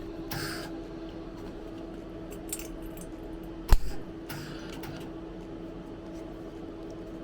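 Welder setup humming steadily, with two short hissing bursts and a single sharp metallic knock a little before halfway, rather than a sustained weld.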